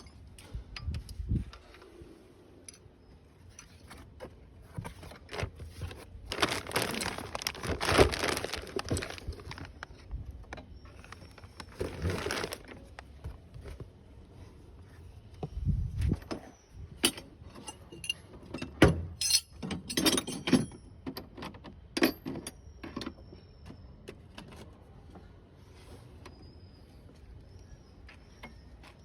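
Metal tools and parts clinking and clattering in irregular short knocks, with a few longer scraping, rustling stretches.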